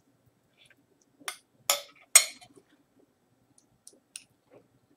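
Metal spoon clinking against a plate three times within about a second while scooping eggplant out of its skin, followed by a few faint ticks.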